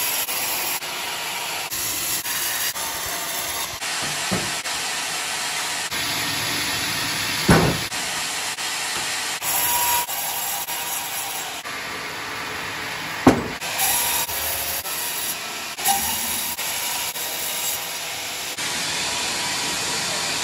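Band sawmill blade ripping lengthwise through a rotten Johar log, a steady hissing rasp with water running onto the blade. A few short sharp knocks come through, the loudest about seven and a half and thirteen seconds in.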